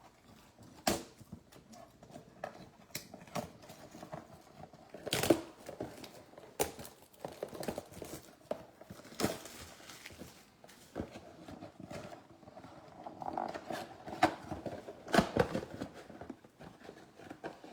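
Hands opening and handling a trading-card mega box: irregular clicks, taps and rustling of cardboard and packaging, with a few sharper knocks, the strongest about five seconds in and again near the end.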